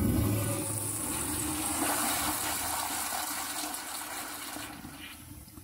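Back-spud Eljer Toilette female urinal flushing: a rush of water into the bowl, strongest over the first couple of seconds, then gradually dying away.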